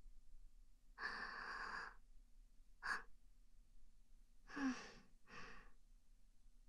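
A woman's breathing, close-miked: a long sigh-like breath about a second in, a short breath near three seconds, then two more breaths around the five-second mark, the first with a brief voiced catch.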